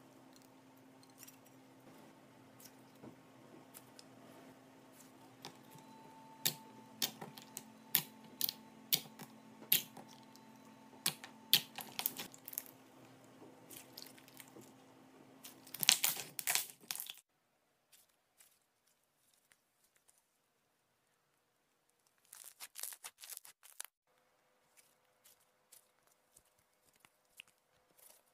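Slime being squeezed and kneaded by hand, with scattered sticky clicks and pops of trapped air. A dense run of crackling pops comes a little past halfway, then a few seconds of near silence and another short run of crackles.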